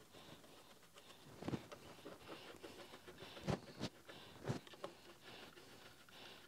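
Small screwdriver turning screws into an aluminium frame, with a few short clicks and light scrapes of the tool in the screw heads and the frame being handled.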